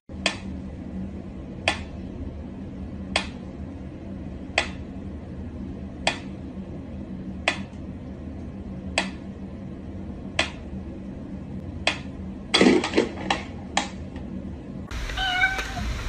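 A cat meowing over and over in short calls, evenly spaced about every second and a half, then several quicker, louder calls near the end.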